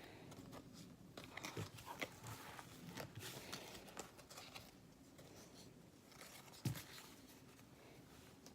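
Faint rustling and small clicks of hockey trading cards being handled and flipped through, with one soft thump about two-thirds of the way through.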